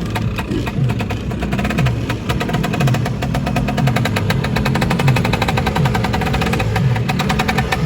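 Lambretta scooters' two-stroke engines running and revving, with a fast, crackling exhaust beat and engine pitch rising and falling.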